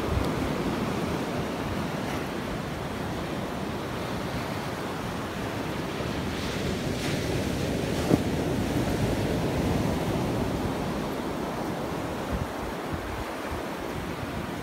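Ocean surf breaking and washing up a sandy beach, a steady rush, with wind buffeting the microphone. A single short click sounds about eight seconds in.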